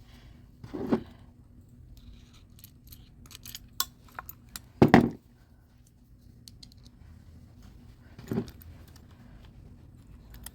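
Small metal clicks, ticks and knocks of a screwdriver and a small screw being worked into a smart lock's metal front assembly to fix the key cylinder in place. There are three louder knocks, about one, five and eight and a half seconds in, the middle one the loudest.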